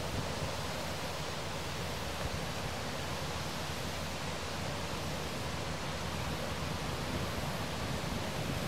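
Steady wind noise rushing over the microphone outdoors, an even hiss and rumble with no distinct events.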